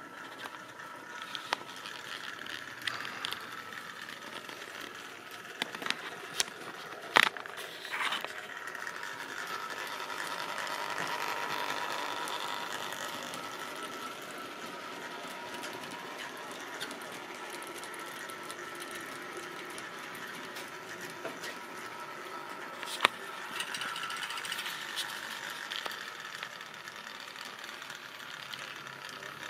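Tri-ang model train running along the track: a steady small electric motor hum with the rattle of wagon wheels on the rails, swelling as the wagons pass close by, with a few sharp clicks, the loudest about seven seconds in.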